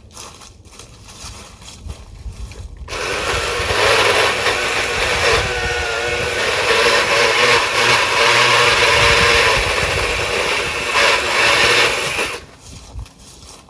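Milwaukee M18 battery-powered pole saw running its chain through wood, on its low speed setting. It starts about three seconds in, its pitch wavers briefly a few seconds later, and it stops near the end.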